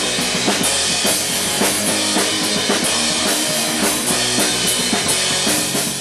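Punk rock band playing live in rehearsal: a drum kit keeps a steady, driving beat on bass drum and snare under loud, distorted-sounding instruments, with no singing.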